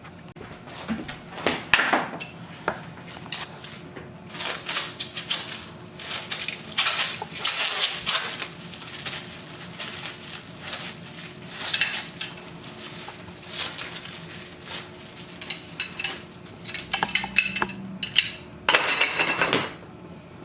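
A play yard's metal frame tubes and plastic rail joints clicking and clattering as they are handled, while the top rails are worked to lift and lock them, with a longer scraping rattle near the end.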